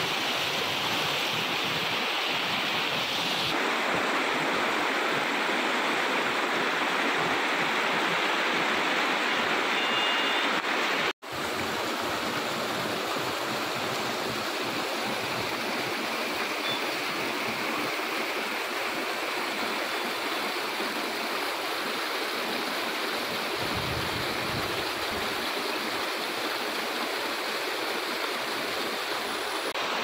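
Water rushing and splashing over rocks in a rocky stream at the foot of a waterfall, a steady rush. It cuts out for a split second about eleven seconds in.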